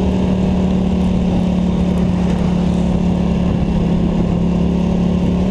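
Polaris Scrambler ATV engine running at a steady pitch while under way, a constant drone with no revving.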